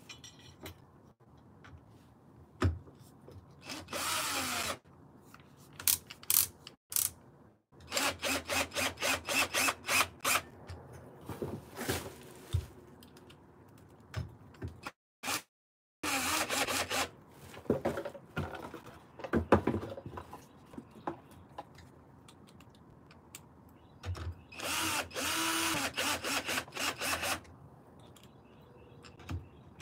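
Cordless drill-driver driving screws to fasten an electric unicycle's pedal hanger. It runs in several short bursts of a few seconds each, with pauses between them, and some runs stutter in rapid pulses.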